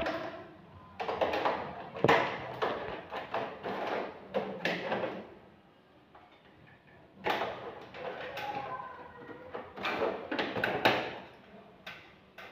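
Plastic clicking and rattling as the mesh air filters of a split air conditioner's indoor unit are handled and fitted, in two busy stretches with a quiet pause of about two seconds between them.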